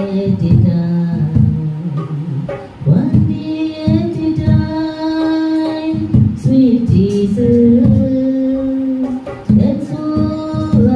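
A woman singing a devotional song into a microphone, with hand drums (congas) keeping a steady beat under the melody.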